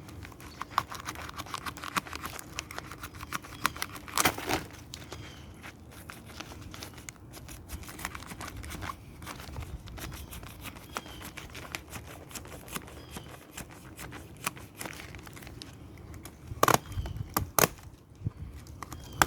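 Used Bosch paper oil filter element being cut open and its pleats pulled apart, with irregular crinkling, tearing and sharp clicks, to inspect it for metal or plastic debris.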